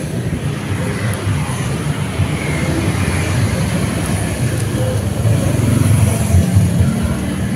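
Passing road traffic: a steady low rumble of vehicles that swells as one goes by close about six seconds in.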